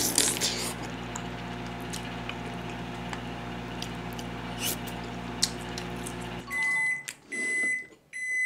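Microwave oven running with a steady hum, with faint clicks of spoon-eating over it. About two-thirds of the way in the hum stops and the microwave beeps three times, signalling that the cooking cycle is done.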